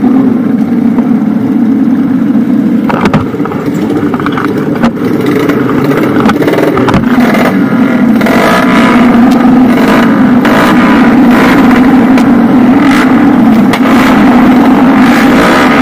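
Many motorcycle engines running together in a crowded group, some revving as riders pull away, with a steady engine note throughout that grows louder about halfway through.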